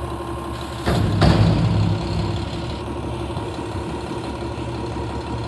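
Front-loader garbage truck's diesel engine running, revving up for about a second with two sharp knocks while the lift arms lower the emptied dumpster, then settling back to a steady idle.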